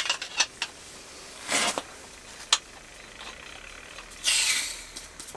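An isobutane-propane gas canister being screwed onto the bottom of a Jetboil Flash stove: small metal clicks and handling noise, with two short bursts of hissing, the longer and louder one near the end.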